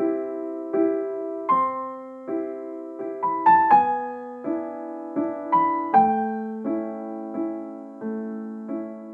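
Intro music: a piano tune of struck notes and chords that each fade away, played in an even pulse of about one every three-quarters of a second, with a quicker run of notes midway.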